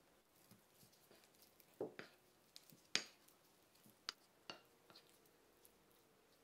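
Wooden spoon knocking and scraping against a ceramic plate while softened butter is stirred together with chopped green chili: a scatter of light clicks, the sharpest about three seconds in.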